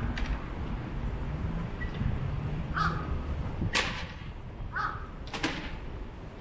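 A crow cawing twice, about two seconds apart, over a low background rumble, with a sharp click between the two caws and another just after the second.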